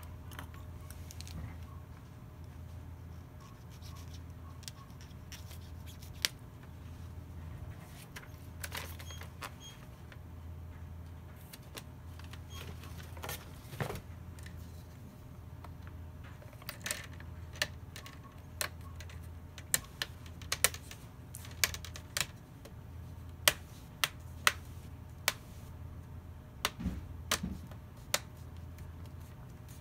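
Sharp plastic clicks as the Dell Inspiron laptop's screen bezel is pressed back onto the display lid and its clips snap into place, coming more often in the second half. Before that, a few faint clicks from small-screwdriver work at the hinge, over a low steady hum.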